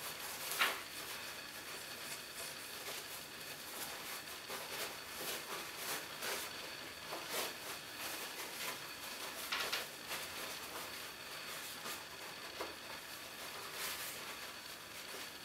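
Acetone-dampened paper towel rubbed over fingernails to wipe off cuticle remover: brief, scattered rustling swipes over a steady background hiss, the loudest about half a second in.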